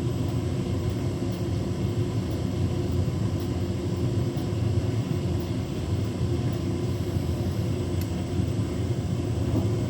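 Beko WTK104121W washing machine running steadily, its motor turning the drum with a low rumble and hum as it tries to balance the load for spin. The bedding load is so unbalanced that it has not yet been able to spin.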